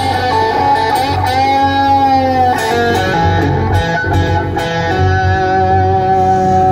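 Live band music: an acoustic guitar and an electric guitar playing a song together, with long held melody notes.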